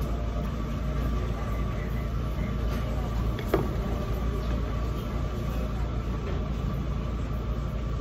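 Steady low background hum, with one sharp clink of a metal fork against a ceramic plate about three and a half seconds in.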